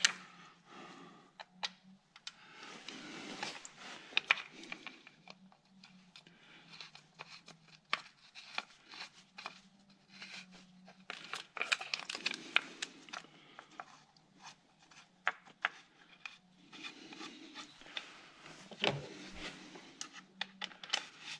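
Hands working on the timing-chain end of a BMW N62 V8: scattered light metallic clicks and taps as parts and a hand tool are handled and fitted, with bursts of rustling.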